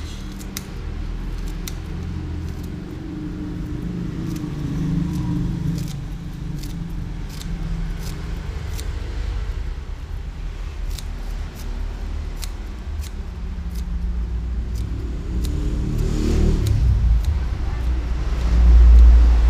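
Scissors snipping green onion leaves into a pot, a run of short sharp clicks, over a low vehicle-like rumble that swells to its loudest near the end.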